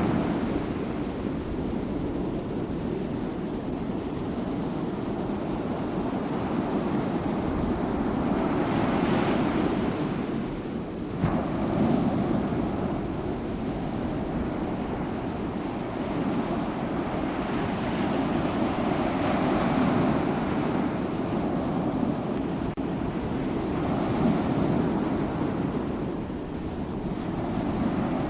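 Sea waves washing onto a shore: a continuous rush of surf that swells and eases every few seconds, with one sharper wave surge about eleven seconds in.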